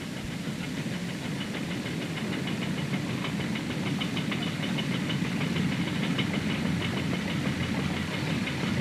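Chain-guided vehicle ferry's machinery running as it crosses: a steady low engine drone with rapid metallic clicking over it, slowly growing louder as the ferry approaches.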